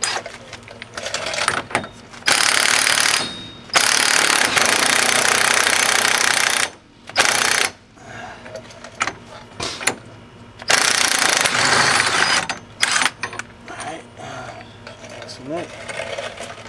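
Impact wrench hammering on a car's front axle nut in four bursts, the longest about three seconds, with quieter tool clanks between them.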